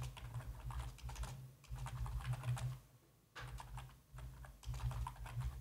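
Typing on a computer keyboard: quick runs of keystroke clicks with a short pause about halfway through.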